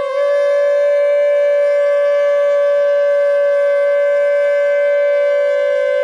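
Two animal-horn trumpets blown together in one long, steady note, with a slight lift in pitch just after it begins.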